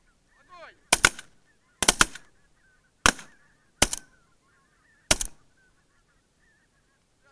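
Shotgun fire at a flight of geese: five loud shots in quick succession, about one a second. Geese honk faintly between the shots.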